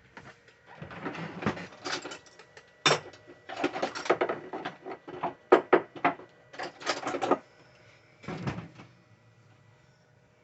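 Irregular bursts of scraping and clattering, some sharp knocks among them, from things being handled and worked by hand, stopping a little before the end.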